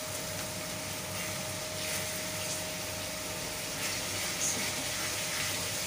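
Masala frying gently in a kadhai, a soft steady sizzle, with a few light scrapes as a wooden spatula stirs in freshly added turmeric.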